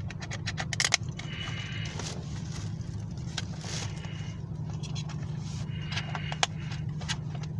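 Plastic DVD case and discs being handled: a quick run of clicks in the first second, then scrapes and a few sharp clicks as discs are worked on and off the case's hub. Under it runs the steady low hum of a car's engine, heard inside the cabin.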